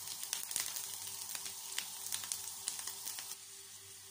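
Split almonds frying in a little oil in a non-stick pan, sizzling with many sharp crackles as they toast toward golden brown. The crackling drops off and the sizzle turns quieter about three seconds in.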